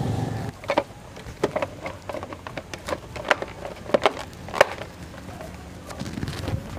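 Plastic headlight cover of a Yamaha Mio Sporty scooter being pressed back into place by hand: a string of sharp plastic clicks and knocks as the panel is seated against the handlebar housing, the loudest a little past the middle.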